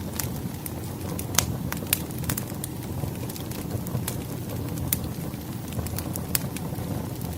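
Bonfire crackling: irregular sharp pops and snaps over a steady low roar of burning wood.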